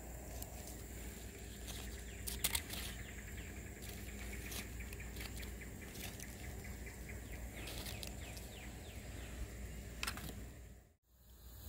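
Wood campfire crackling faintly, with scattered sharp pops, the loudest about two and a half seconds in.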